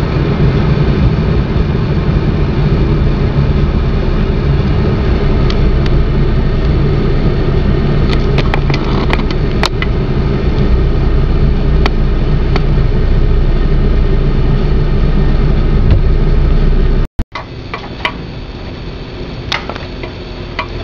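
Steady low rumble of a car driving, heard inside the cabin, with a few scattered small clicks. About 17 seconds in it cuts off abruptly and gives way to a much quieter stretch with a few light clicks and taps.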